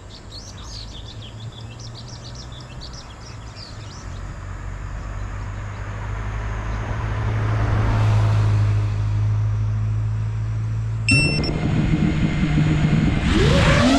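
A road vehicle passes, swelling to its loudest about two-thirds through and then easing off, over a steady low hum, with birds chirping in the first few seconds. About eleven seconds in, the FPV quadcopter's motors start suddenly with a high whine. Near the end they throttle up louder, wavering in pitch, for takeoff.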